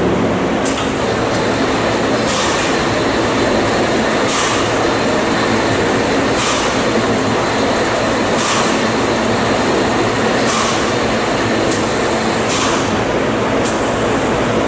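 Liquid running into a steel drum through an automatic drum filler's lance: a steady rushing noise, with a short hiss about every two seconds.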